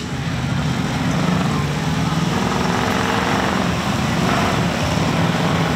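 Off-road vehicle engine running, its pitch rising and falling once in the middle as it revs.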